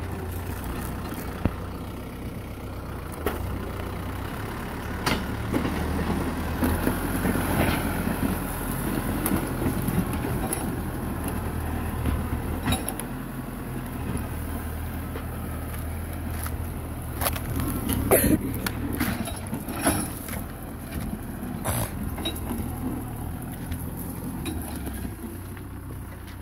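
Kubota M6040SU tractor's diesel engine running steadily under load as it pushes soil and brush with its front blade. A few sharp cracks and knocks cut through, the loudest about two-thirds of the way in.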